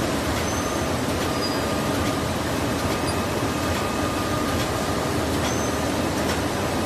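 Automatic kitchen towel roll packing machine running: a steady mechanical din of its drives and conveyors, with a faint steady whine and a few light clicks from the mechanism.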